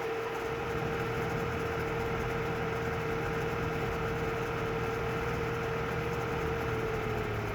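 Audi A4 B8 2.0 TFSI turbocharged four-cylinder petrol engine idling cold, with a steady whine that dips slightly in pitch near the end. The owner hears a ticking at this cold idle that stops once idle speed falls to 1000 rpm.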